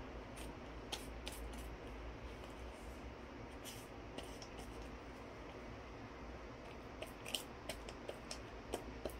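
Soft paper handling: a glue stick rubbed over a small piece of folded coloured origami paper, then the paper pressed down and handled by hand. Light scattered clicks and crinkles, bunched together near the end.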